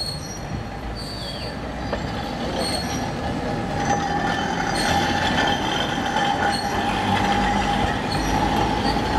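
Alexandria Ramleh tram cars rolling past at close range, with a rumble and a steady high-pitched wheel squeal that sets in about halfway through and grows louder.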